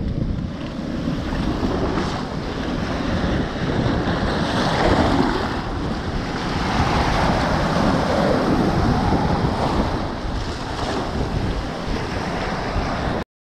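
Ocean surf washing on a beach, with wind buffeting the microphone; the rush of the waves swells and eases, and the sound cuts off suddenly near the end.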